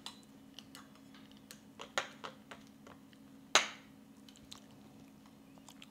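Small scattered clicks and taps of a plastic knife and a plate as a sticky slice of steamed rice cake is handled, with one sharper knock about three and a half seconds in, over a faint steady hum.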